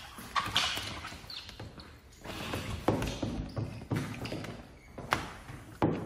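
Wet paint protection film being worked around a car headlight with a plastic squeegee and fingers: irregular swishes, crinkles and rubbing of the wet plastic film, with a few sharp clicks.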